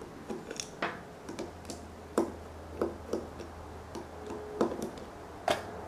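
Irregular small metallic clicks and taps of a screwdriver turning out the screws of a motorcycle carburetor's top cap, with a few sharper knocks among them.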